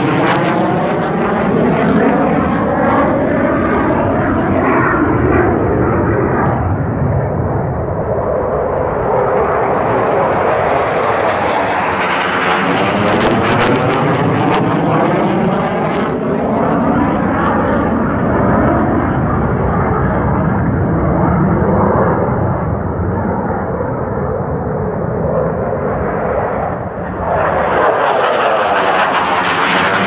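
Military jet flying low overhead, its engine noise loud and continuous, swelling and easing as it circles. The sound dips briefly near the end, then surges again as the jet comes back round.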